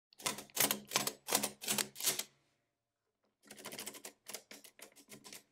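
Keys of a Lindström Record mechanical step-drum calculator being pressed one after another, each a sharp metal clack as the check register above the keyboard advances. About six clacks, then a pause of about a second, then a quieter run of about six clicks.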